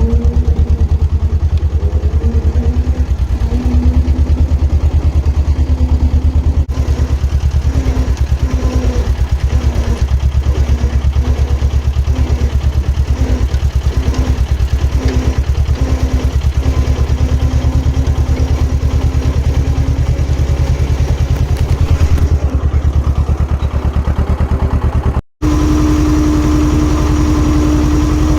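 Diesel engine of small construction plant running steadily with a heavy low rumble, a tone over it coming and going in short repeated pulses as the machine works. Near the end the sound cuts out for a moment, then the engine carries on with a steadier hum.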